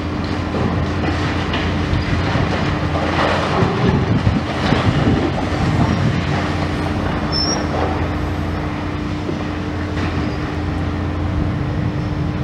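Demolition excavator's engine and hydraulics running with a steady drone, while its steel jaw attachment crunches, scrapes and tears at twisted steel framing and cables, the crunching busiest about a third of the way in.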